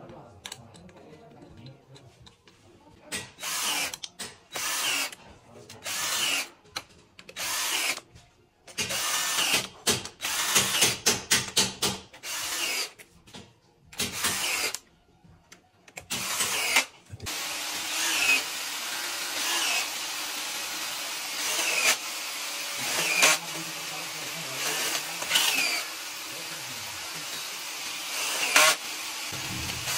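Cordless drill-driver spinning in short bursts as it runs bolts into the oil cooler and filter housing of a 4.4 V8 diesel engine. After about seventeen seconds a steady hiss sets in under the bursts.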